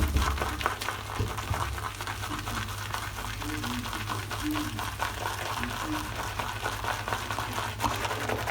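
Shaving brush whipping shaving cream into a lather in a bowl: a steady run of fine, fast wet clicks and squishes from the brush strokes, with a low hum underneath.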